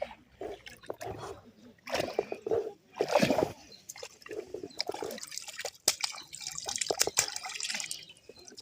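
Water splashing and trickling in irregular bursts, loudest about a third of the way in.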